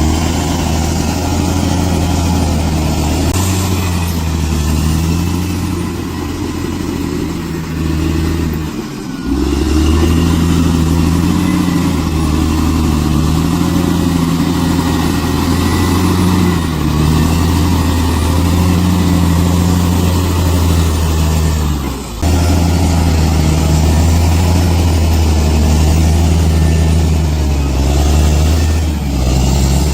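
Heavy diesel engine of a bulldozer running under load, its pitch shifting up and down as it works. The sound breaks off briefly twice, about nine and twenty-two seconds in.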